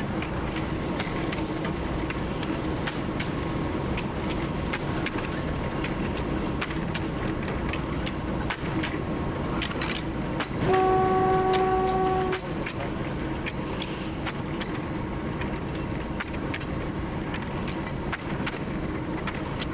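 TU7 narrow-gauge diesel locomotive running along the track, its engine and running gear making a steady noise with frequent short clicks and knocks. About eleven seconds in, one horn blast of nearly two seconds sounds, the loudest thing heard.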